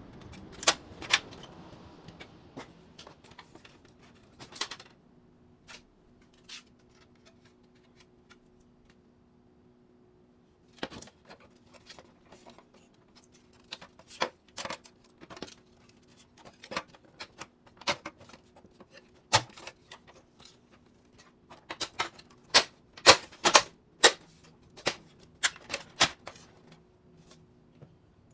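Irregular clicks and knocks of printer parts being handled: a pair about a second in, scattered ones from about eleven seconds in, coming thickest near the end, over a faint steady hum.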